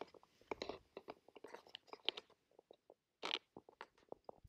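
Small wood campfire crackling with many faint, irregular pops. A few brief soft crunching scuffs come near the start and again about three seconds in.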